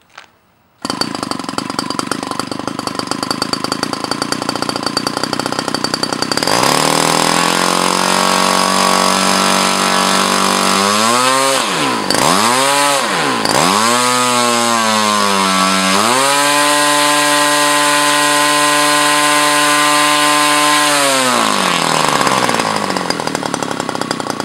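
O.S. GT33 33cc single-cylinder two-stroke gasoline engine with an 18x8 propeller, hand-started by flipping the prop. It catches about a second in and idles, then it is warmed up on manual throttle: the pitch climbs, dips and rises twice, and holds high for several seconds. Near the end it falls back to idle.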